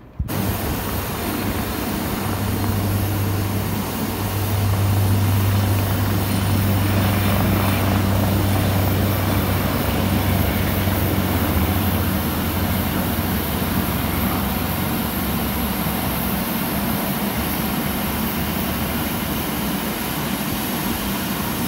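AgustaWestland AW139 twin-turbine helicopter taking off: a steady, loud rotor and engine drone with a strong low hum that starts suddenly, grows louder over the first few seconds and eases off a little in the second half.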